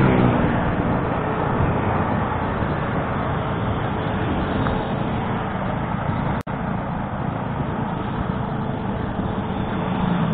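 Motorcycle engine running on the road with wind rushing over the action camera's microphone, a steady noise throughout. Right at the start the engine note falls briefly, and about six seconds in the sound cuts out for an instant.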